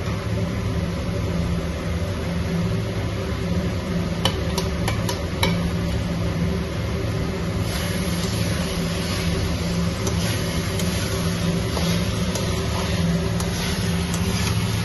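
Cauliflower florets sizzling as they fry in spiced masala in a kadai, over a steady low hum. A metal spatula clicks against the pan a few times about four to five seconds in, and the sizzle grows brighter from about halfway through as the florets are stirred.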